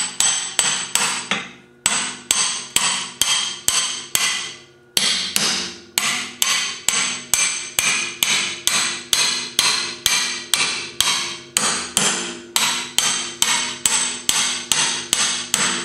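Hand hammer striking a curved gib key puller hooked on a tapered gib key at the flywheel hub of an International Model M engine's crankshaft, about three blows a second, each ringing like metal. Short pauses come about two and five seconds in. The blows are driving the stuck key out of its keyway to free the flywheel.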